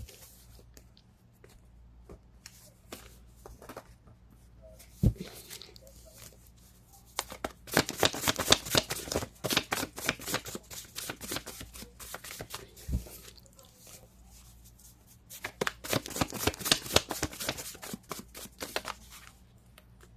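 A deck of tarot cards being shuffled by hand: two spells of rapid, dense card clicks lasting several seconds each, with scattered softer ticks and a single dull thump before each spell.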